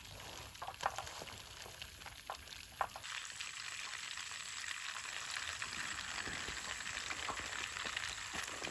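Butter sizzling and crackling in a frying pan as peeled boiled eggs fry in it. The sizzle gets louder and denser about three seconds in, with a few sharp clicks before that.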